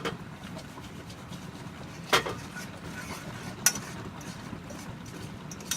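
A fork stirring and breaking up popcorn kernels and solid butter topping in a pan, with a few sharp clinks of the fork against the pan over a steady background hiss.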